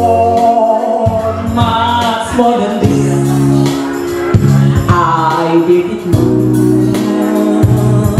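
A woman singing into a microphone over a PA, accompanied by a Korg electronic keyboard playing held chords and bass notes that change every couple of seconds.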